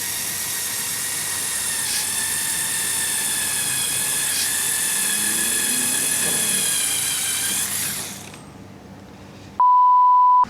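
Small electric motor of a Lego Technic off-road model whining steadily, its pitch wavering slightly, then dying away about eight seconds in. Near the end a loud, pure, steady beep sounds for about a second.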